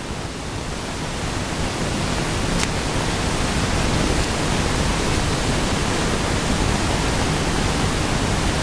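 Steady hiss across the whole range, swelling over the first two seconds and then holding level, with one faint click about two and a half seconds in.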